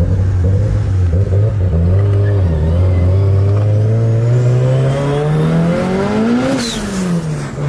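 Tuned turbocharged Nissan engine heard from inside the cabin under hard acceleration. The revs climb steadily with a faint rising turbo whistle, then drop sharply about six and a half seconds in as the driver lifts, with a short hiss.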